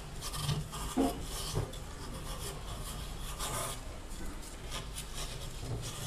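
Sandpaper rubbed by hand over the drum-shaft bushing of a top-loading washing machine, a rasping scrape in repeated, uneven strokes. The bushing is being dressed smooth before the new cruceta bearing assembly goes on.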